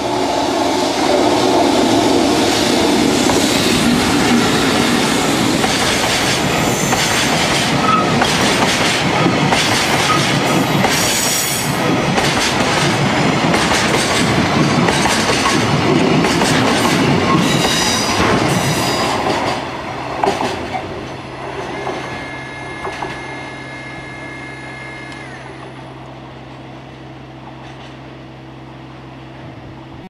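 EF65 electric locomotive hauling a gasoline tank-wagon freight train passing close by: first the locomotive's running noise, then the steady clickety-clack of the wagons' wheels over the rail joints, with high wheel squeal on the curve. The sound drops away about 20 seconds in as the train moves off.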